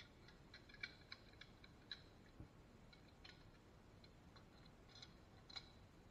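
Faint, irregular metal clicks and ticks from hand tools and a small pump part being handled.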